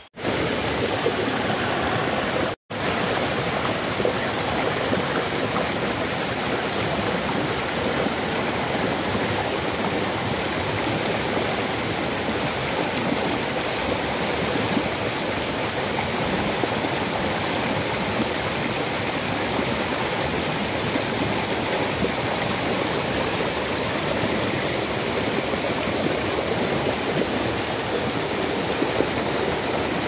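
Mountain stream water rushing and splashing over rocks, a loud steady rush that breaks off for an instant about two and a half seconds in.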